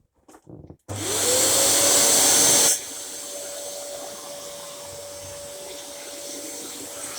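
Dyson DC07 upright vacuum cleaner switched on about a second in: the motor spins up with a rising whine that settles to a steady pitch. Under a couple of seconds later the sound drops sharply in loudness and then runs on steadily. A few faint clicks come just before it starts.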